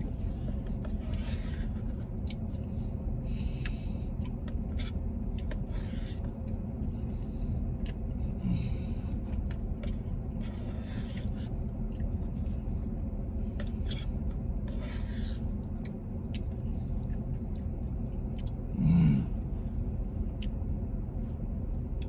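Eating sounds: a plastic spoon scraping in a paper Blizzard cup, chewing and mouth sounds, over the steady low hum of a parked vehicle running, heard inside the car's cabin. A short "mm" of enjoyment comes a few seconds before the end.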